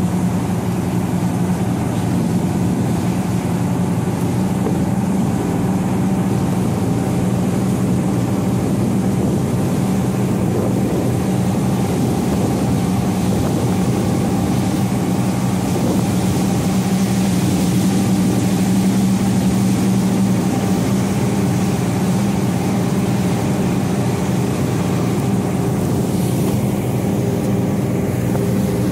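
A party fishing boat's engines running steadily under way: a low, even drone, with the rush of water along the hull.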